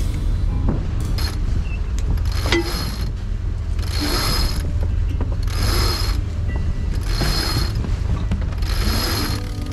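A sailboat's mast winch being cranked with a winch handle: its pawls ratchet in a burst with each turn, five times about every second and a half, over a steady low rumble of wind on the microphone.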